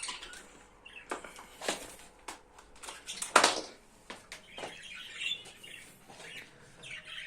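Budgerigars chirping and twittering, with a few short noisy bursts of wing fluttering, the loudest about three and a half seconds in.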